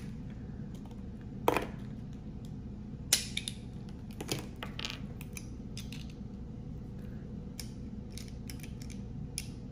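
Plastic LEGO pieces clicking and knocking as they are handled and set on a glass-topped table, with the sharpest clicks about one and a half and three seconds in, over a steady low hum.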